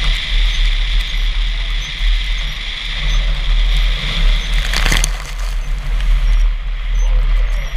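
Wind and road rumble on a hood-mounted camera as a Chevy Suburban drives a wet dirt road, with a hiss of water and tyres. About five seconds in, a short splash sounds as it goes through a mud puddle, and the hiss fades after it.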